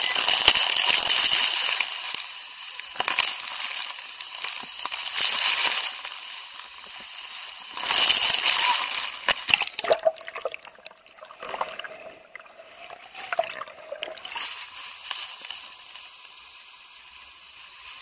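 Rushing, splashing water of a waterfall pool, loud for the first half and again around 8 seconds in, then dropping to a quieter, duller hiss.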